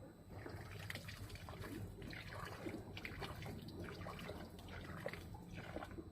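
Irregular wet crackling and gurgling from the throat of a chicken sick with ngorok, a snoring respiratory illness, as the fluid and mucus in its throat are being cleared out.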